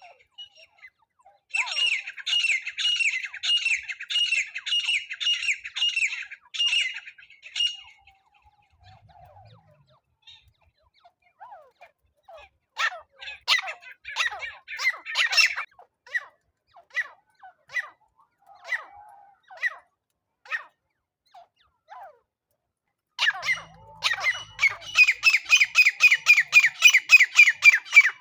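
Francolin (teetar) calling: a loud, rapid series of harsh, repeated squawking notes, then a stretch of scattered single notes, then another rapid series starting near the end.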